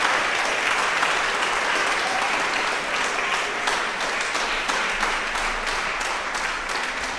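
Concert hall audience applauding, steady and dense, easing off slightly near the end.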